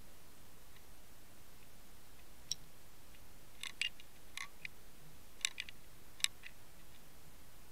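Underwater recording: a steady faint hiss, with about a dozen sharp, irregular clicks, some in quick pairs, starting about two and a half seconds in and stopping about six and a half seconds in.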